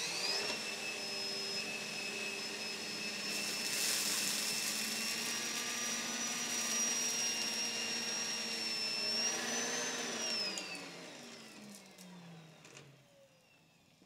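Numatic Henry Petcare canister vacuum running with its air-driven spinning turbo brush tool, a steady high whine over the suction noise. About ten seconds in the machine winds down, its pitch falling as it fades out.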